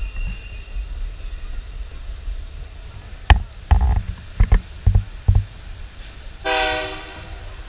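Passenger excursion train running, heard from an open car as a steady low rumble, with a run of sharp clacks a few seconds in and a short pitched sound under a second long near the end.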